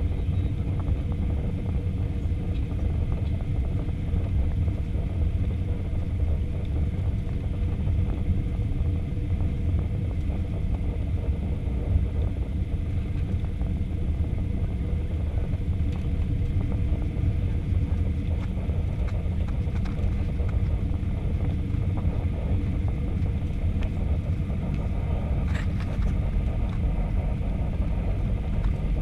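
Steady low rumble of an Airbus A320 heard from inside the passenger cabin on final approach, the engines and airflow over the extended flaps blending into an even drone with a faint steady hum on top.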